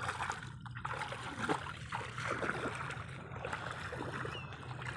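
Shallow muddy water sloshing and splashing in irregular bursts as people wade barefoot through it and grope for fish by hand.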